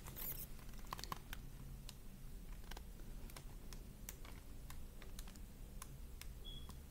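Faint handling noise from a picture book held close to the microphone: scattered, irregular small clicks and taps of fingers and paper as the book is shifted.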